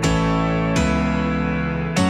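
Background music: an acoustic guitar playing strummed chords, a new chord struck at the start, about three-quarters of a second in, and again near the end, each left ringing.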